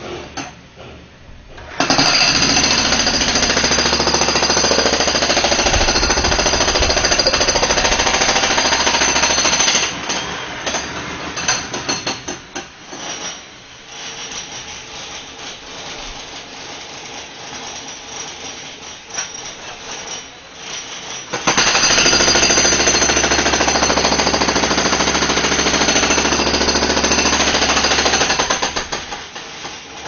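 Jackhammer breaking up the balcony surface close to the microphone, in two long runs of about eight seconds each. The first starts about two seconds in, the second about two-thirds of the way through, with a quieter stretch of scattered knocks between them.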